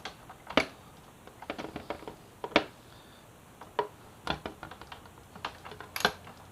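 Hand tool working the bolts on a motorcycle's mirror stay bracket: irregular sharp clicks and light metal taps, some single and some in quick short runs.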